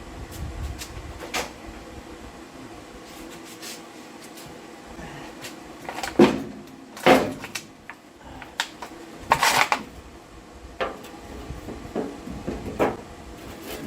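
Scattered metal clunks, knocks and scrapes of tools and parts being handled while a driveshaft's center carrier bearing is worked loose. The loudest knocks come about six, seven and nine and a half seconds in.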